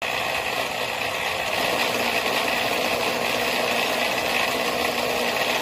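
Small electric rod-drying motor slowly turning a fishing rod, a steady, even hum.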